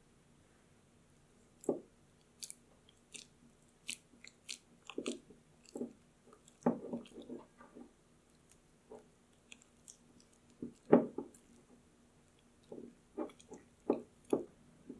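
Silicone spatula folding thick custard cream into almond cream in a ceramic bowl: irregular soft squelches of the cream and light clicks of the spatula against the bowl, the loudest squelch about two-thirds of the way through.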